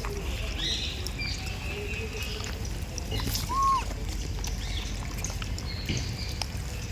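Outdoor ambience with a steady low rumble and a few short, high chirping animal calls, and one short, clear whistled call that rises and falls about three and a half seconds in.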